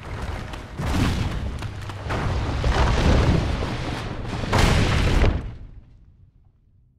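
Cave rockfall: heavy rumbling and crashing of falling rock that swells in several surges, the loudest about five seconds in, then dies away.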